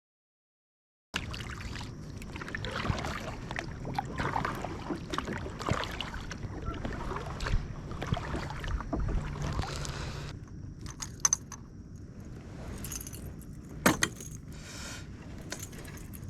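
Fishing tackle being handled: light metallic clinks and rustling, thinning out to a few sharp clicks, with one loud click near the end.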